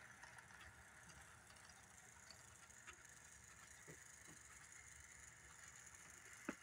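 Faint, steady running of a model train, the Baltimore and Ohio F7 locomotive's electric motor humming and its wheels rolling on the track, with a few light ticks and one sharper click near the end.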